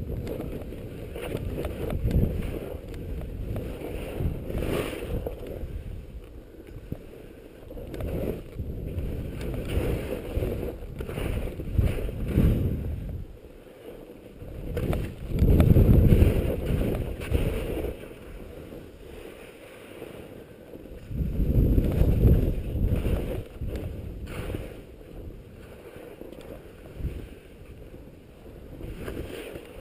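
Wind rushing over an action camera's microphone during a downhill ski run, with the skis hissing and scraping on the snow through the turns. The rush rises and falls with the turns and is loudest twice: near the middle and again about two-thirds through.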